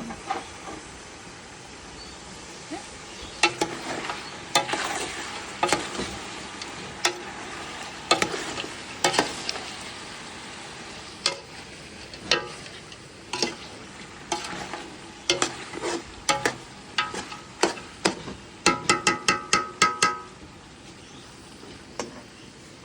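Food frying in a pan with a steady sizzle, while a utensil stirs and knocks against the pan again and again. About nineteen seconds in, a quick run of ringing metal taps, like a spoon rapped on the pan's rim.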